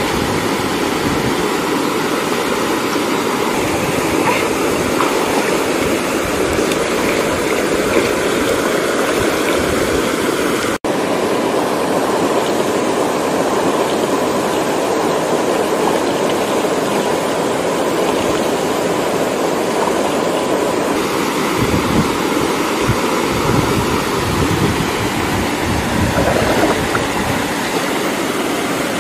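Steady rush of a small waterfall and stream pouring into a rocky pool, with a few faint water splashes from people wading in it.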